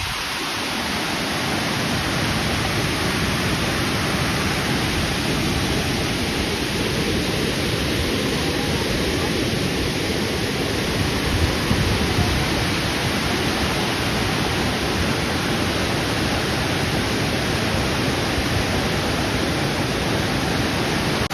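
Tomara Waterfall's water falling and rushing, a loud steady roar.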